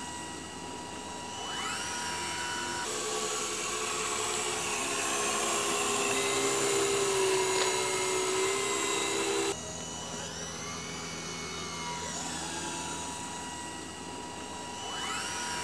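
Steady mechanical whine and hum for the hovering car, with sweeping tones that rise and then fall several times. The sound changes abruptly about three seconds and nine and a half seconds in.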